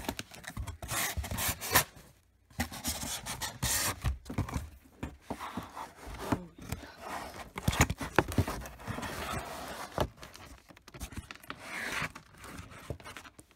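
Cardboard box and packaging being handled and opened by hand: irregular rubbing and scraping with many small knocks and clicks.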